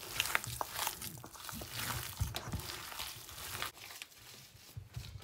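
Hands squishing and kneading a moist chicken and chana dal kebab mixture in a stainless steel bowl: irregular wet rustling with small clicks against the metal, quieter after about three and a half seconds.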